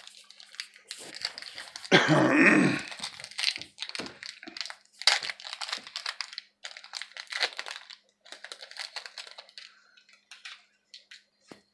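Foil wrapper of a Topps baseball card pack crinkling and tearing as it is opened and handled, in irregular rustling bursts, loudest about two seconds in.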